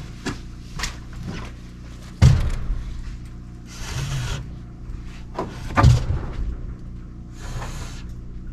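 Wooden roof stringers being handled and laid across rafters: wood knocking on wood, with two heavy thumps about two seconds in and just before six seconds, and scraping slides of board over the rafters in between. A steady low hum sits underneath.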